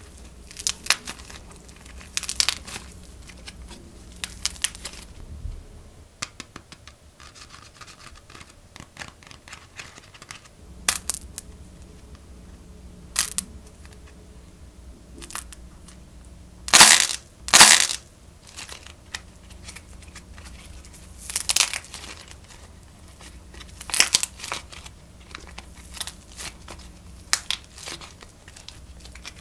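Modelling clay crackling and tearing as hands squeeze and pull apart clay macarons, in irregular crinkly crackles. About halfway through come two sharp, loud cracks in quick succession.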